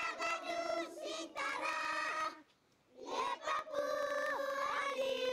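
Voices singing long, held notes, in two phrases with a brief pause about halfway through.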